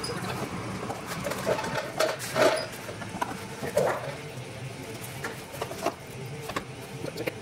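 Clecos being pushed into drilled holes in the aluminium structure with cleco pliers: scattered small metallic clicks and clatter, louder about two and a half and four seconds in.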